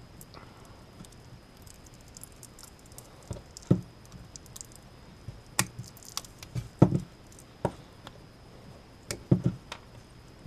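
Diagonal side cutters and pliers biting into and tearing a military cable's tough moulded rubber boot and the shielding beneath it: irregular sharp snaps and crunches, a handful of loud ones spread through, the loudest just before the middle.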